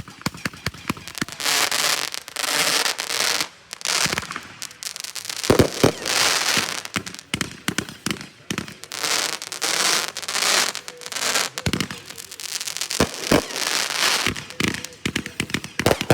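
A consumer multi-shot firework cake firing its grand finale: a rapid string of launch pops and bangs, with repeated stretches of dense crackling between them.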